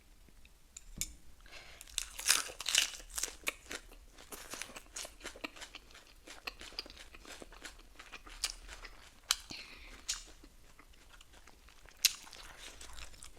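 A person biting and chewing crunchy food, with many sharp, irregular crunches that are loudest a couple of seconds in and again near the end.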